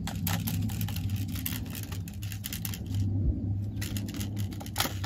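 Low steady rumble, as of wind on the microphone, under many quick rustling clicks and scrapes of handling among brush and cactus.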